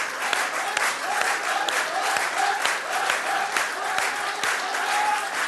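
Studio audience clapping steadily, with a wavering, warbling tone running over the applause.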